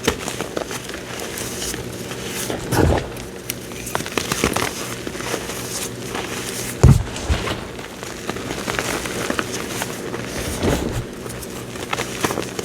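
Cornstarch squeezed and crushed by hand: a steady run of fine squeaky crackles, with a few heavier crunches about three, seven and eleven seconds in.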